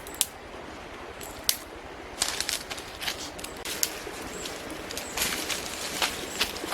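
Irregular sharp clicks and knocks, a small cluster of them about two seconds in, over a steady outdoor hiss with faint high chirps.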